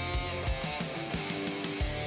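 Rock music with strummed electric guitar, bass and a steady drum beat.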